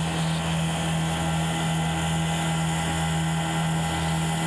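Outboard motor of a small fibreglass fishing boat running steadily under way, a constant low drone with no change in pitch.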